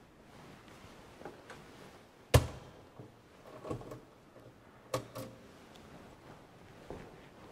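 Gilded metal tabernacle door shutting with one sharp thunk about two seconds in, followed by a few lighter clicks and taps at the door.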